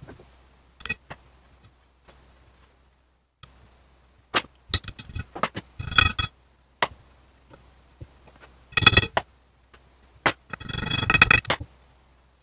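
Small steel trigger parts of a Wards Western Field model 17b .410 bolt-action shotgun clicking, clinking and scraping as the trigger and its dowel pin are worked into place, a tight fit. Scattered sharp metallic taps with a brief ring come in clusters, with a dense rattling run of clicks about eleven seconds in.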